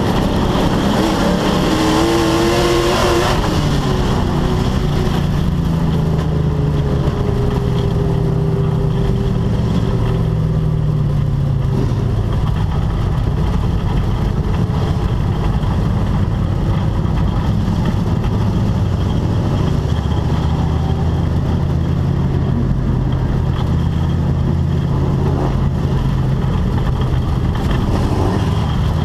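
Dirt-track race car's engine, heard from inside the cockpit, running loud and continuous at racing speed. The revs drop over several seconds about four seconds in, then climb again later.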